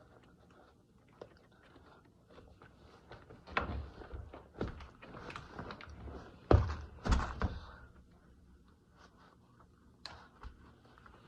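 Dull thuds and knocks from a tight new Alexander McQueen sneaker being worked onto a foot, with handling rustle between. One thump comes about a third of the way in, and the two loudest come about two-thirds in, half a second apart.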